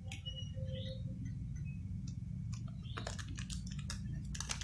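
A small powder sachet crinkling and being torn open by hand. It starts with a few scattered crackles, then a dense run of sharp crackles in the last second and a half, over a steady low hum.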